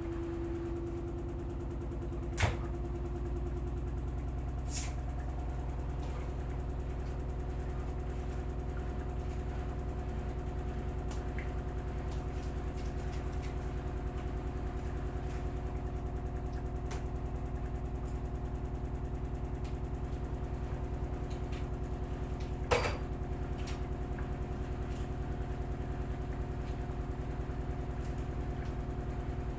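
LG direct-drive front-loading washing machine running a wash: a steady motor hum with a fine fast pulsing to it, and three sharp knocks from something in the load hitting the drum, about two and a half seconds in, near five seconds, and near the end.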